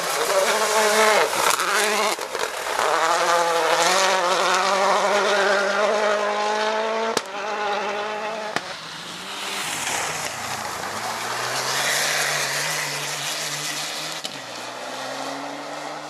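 Rally car engine at full throttle as a Citroën DS3 WRC passes, its pitch climbing and dropping through quick gear changes; the sound breaks off suddenly about seven seconds in. A second rally car's engine then comes in, its pitch climbing through the gears toward the end.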